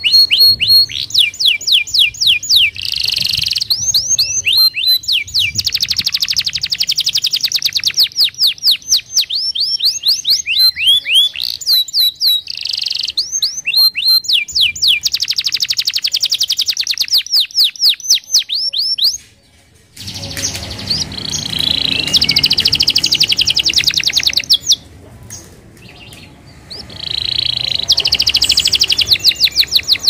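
Domestic canary singing: a long song of fast trills and rapidly repeated falling notes, high-pitched. The song stops for a moment about two-thirds of the way through, then picks up again, with a softer passage near the end.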